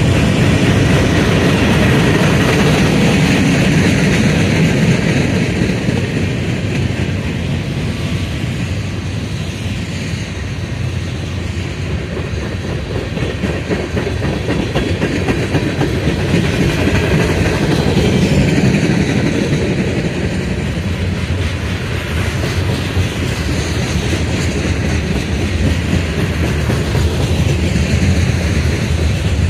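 A mixed freight train of boxcars, tank cars and covered hoppers rolling past close by, its steel wheels rumbling and clicking steadily on the rails. The sound eases a little for a while in the middle, then builds again.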